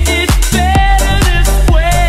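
Dance remix music from a megamix, with a steady kick drum about twice a second under a held, wavering melody line.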